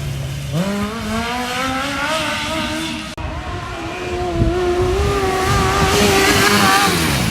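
Engine of an engine-swapped Honda Odyssey buggy revving hard under full throttle on a timed lap. Its pitch climbs, then holds high and falls away near the end.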